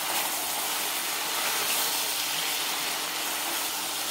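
Brinjal and potato pieces sizzling steadily in hot oil in a frying pan while a spatula stirs them.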